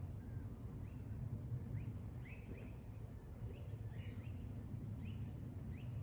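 Small birds chirping: short, high, rising chirps, about two a second, over a steady low background rumble.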